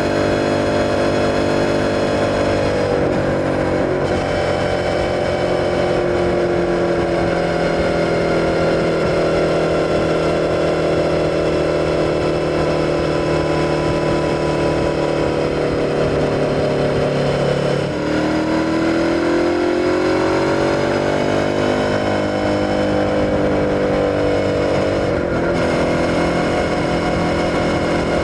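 Suzuki SV650's 645 cc V-twin engine running under way on the road, heard from on board. It holds a steady note for long stretches, with sudden drops in pitch at gear changes and a climbing note as it pulls again about two-thirds through.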